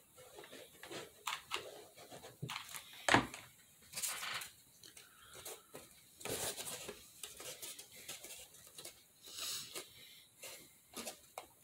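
Faint handling noises of cardboard and a hot glue gun: a panel being pressed and rubbed against a cardboard tissue box, with scattered small clicks and rustles and one sharper knock about three seconds in.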